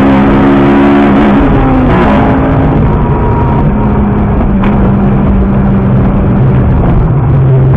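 Car engine and road noise picked up by a dashcam inside the cabin while driving, loud and steady. The engine note climbs a little in the first second and drops lower near the end, with one brief sharp click about four and a half seconds in.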